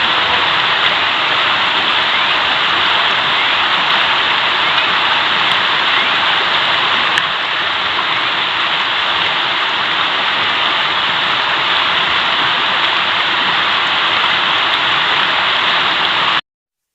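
Mountain river rushing over its bed, a loud, steady roar of flowing water that cuts off suddenly just before the end.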